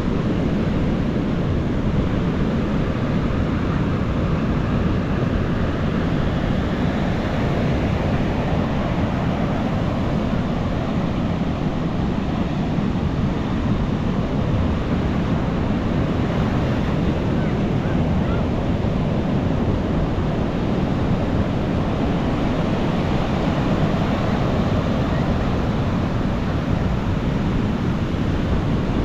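Ocean surf breaking on a beach: a continuous rush of waves that swells a little now and then without a break.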